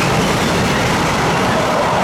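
A train passing close by, its wheels making a loud, steady rolling noise on the rails.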